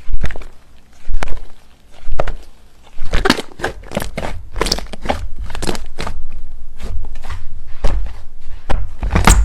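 Slime being handled close to the microphone: three slow presses about a second apart, then about three seconds in, steady squishing with many crackling pops and clicks.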